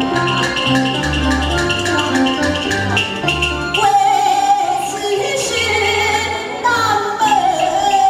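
Taiwanese opera (gezaixi) accompaniment band playing a tune with a steady, repeating bass and percussion beat. About four seconds in, a held, wavering melody line enters over it and glides down near the end.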